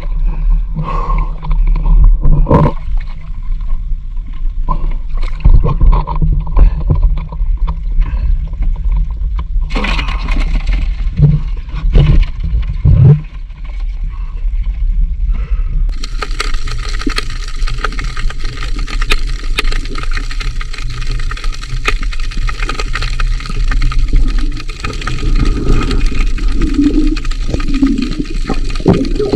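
Seawater sloshing and splashing as crabs are lifted from shallow water by hand, over a steady low hum. A steady high hiss comes in about halfway through.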